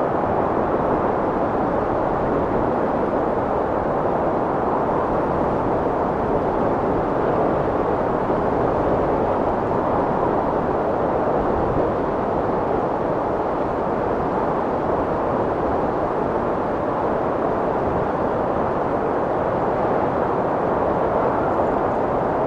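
Strong wind blowing steadily: a dense, muffled noise with little hiss, swelling and easing slightly in strength.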